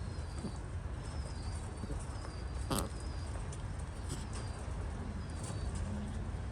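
A small bird chirping, a short high whistled call repeating about once a second, over a steady low rumble, with one sharp click about three seconds in.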